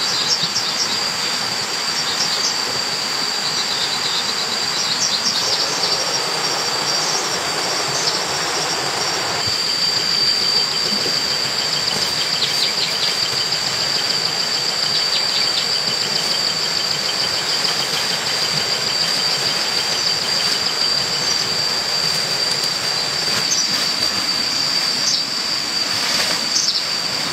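Chorus of insects in woodland, a steady high-pitched whine with pulsing trills coming and going. A few short rustles and clicks near the end.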